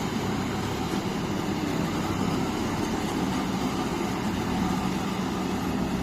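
Self-propelled peanut pickup harvester's engine running steadily, a low even drone with no change in speed.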